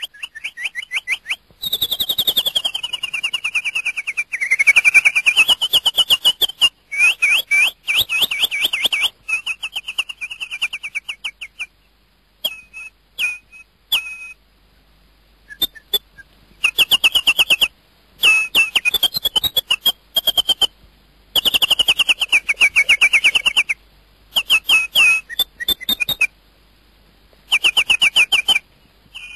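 Bird calling in bouts of rapid chattering trills, with a long whistle that falls and then rises again a couple of seconds in; the bouts start and stop abruptly with short gaps between them.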